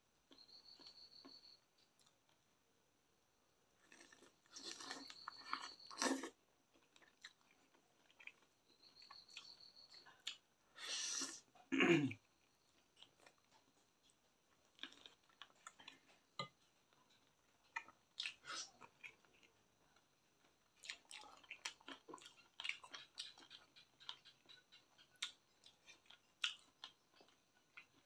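Close-up eating sounds: chewing of chicken and rice, with many small wet mouth clicks. Two louder, longer bursts of mouth noise come about five and eleven seconds in, the second dropping in pitch as it ends.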